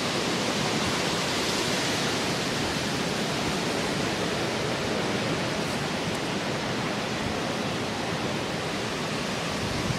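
Strong hurricane wind blowing steadily: a continuous rushing noise with no letup.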